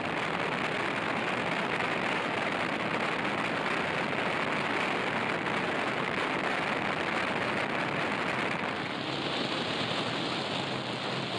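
Steady rush of wind and road noise from a BMW F650GS motorcycle riding at motorway speed, the engine buried under the wind. About nine seconds in the noise changes character and loses its highest hiss.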